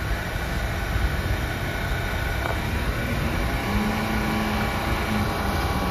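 Steady rushing hum of an R179 subway train standing at the platform with its equipment running, with a brief low hum about four seconds in.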